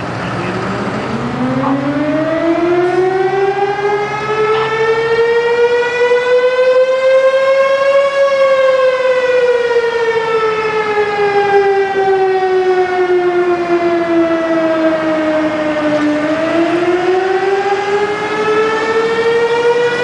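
Outdoor tornado warning siren sounding as the fire alarm, calling out the fire company for a medical assist call. It winds up from a low growl over about eight seconds, slowly falls for about eight seconds, then winds up again.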